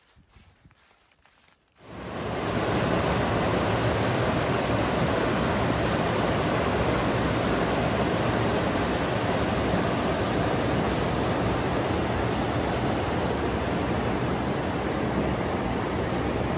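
Faint footsteps in dry leaves, then about two seconds in a loud, steady rush of a mountain creek's whitewater pouring over rocks.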